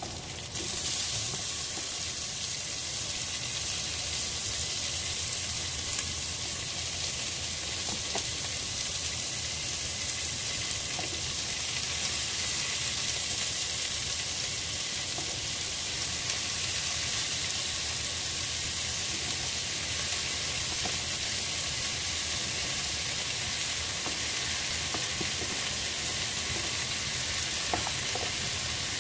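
Chopped beef offal for papaitan goes into a hot pan with sautéed garlic, onion and ginger; the sizzle jumps up about a second in, then runs as a steady hissing sizzle while it is sautéed, with a few faint taps of a stirring utensil.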